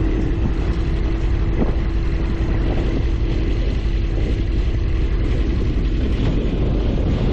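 An engine running steadily: a low, even rumble with a faint steady hum.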